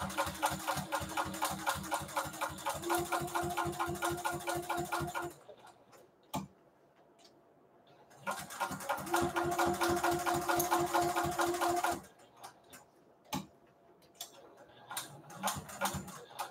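Juki sewing machine stitching through towel fabric in two runs, a rapid even chatter of stitches over a steady motor hum; the first run lasts about five seconds, its pitch stepping up slightly partway through, and the second starts after a pause of about three seconds and lasts about four. Scattered light clicks follow the second run near the end.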